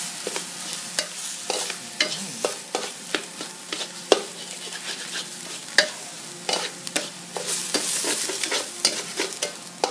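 Diced tomatoes and minced chicken stir-frying in a large metal pan with a light sizzle, while a spatula scrapes and knocks against the pan in irregular strokes, two or three a second.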